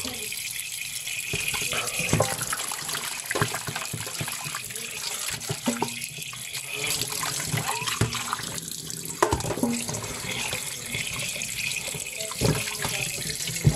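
Tap water running steadily into a stainless steel bowl while a raw whole chicken is rinsed by hand, with splashing and a few short knocks against the bowl.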